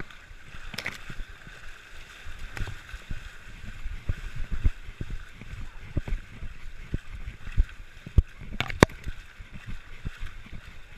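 People wading through waist-deep muddy water, with steady sloshing and splashing and frequent low thuds as legs push through it. A sharp, loud splash or knock comes just after the start and another, the loudest, near the end.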